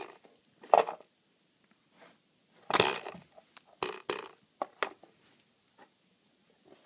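A hard plastic cat toy with a mouse inside being pawed, mouthed and shoved about by a dog, giving irregular knocks, clatters and scrapes. The loudest knocks come about a second in and about three seconds in.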